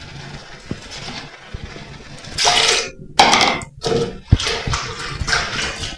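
Blended chile salsa poured from a blender jar into a metal sieve and worked through the mesh by hand, splashing into a plastic bowl below. Several short splashes, the loudest a little over two seconds in.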